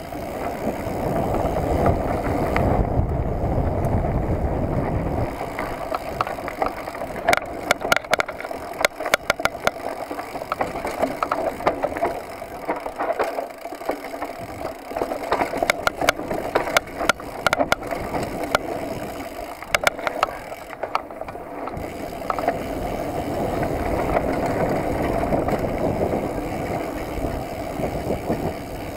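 Mountain bike ridden fast on a dirt forest trail, heard from a handlebar-mounted camera: steady wind rush over the microphone and tyre noise, heaviest near the start and the end, with a stretch of sharp rattles and knocks from the bike over rough ground through the middle.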